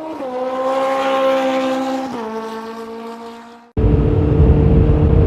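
A vehicle engine accelerating: its pitch rises, holds, then drops about two seconds in and the sound fades. It cuts off abruptly near the end into a much louder, steady low drone.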